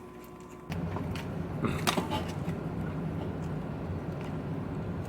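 A steady low machine hum switches on abruptly about a second in and keeps going, with a few sharp clicks over it.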